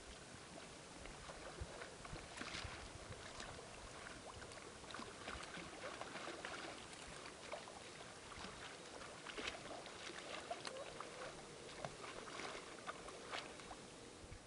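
Open river water flowing and lapping: a steady rush with many small, irregular splashes and trickles.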